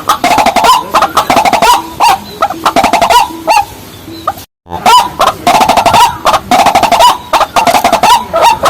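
Loud, rapidly repeated clucking and croaking calls of white-breasted waterhens and watercocks, many calls overlapping. The calls thin out a little past three seconds in, and the sound cuts out briefly at about four and a half seconds before the calling resumes.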